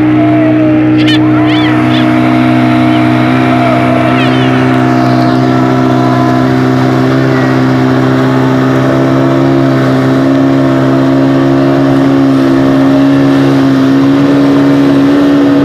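Motorboat engine running steadily at speed, heard from aboard the boat, its pitch holding nearly constant.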